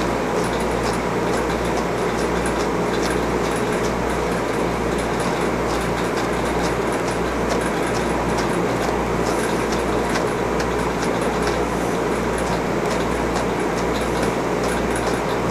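Steady whir of a motor moving air, with a low hum underneath and faint light ticks scattered through it.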